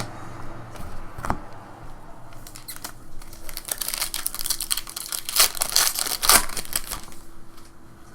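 Foil trading card pack wrapper being torn open and crinkled: a single click about a second in, then a run of tearing and rustling that peaks past the middle.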